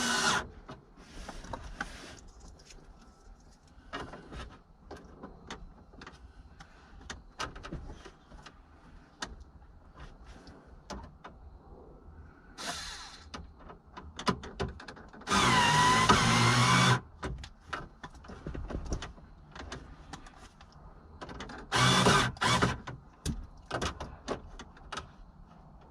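Scattered clicks and plastic handling noises, with a small electric motor of a cordless drill-driver whirring for about a second and a half past the middle, its pitch wavering under load as it drives a screw into the hard plastic of the car's centre console. There are shorter bursts of scraping or whirring near the start, a little before the middle and late on.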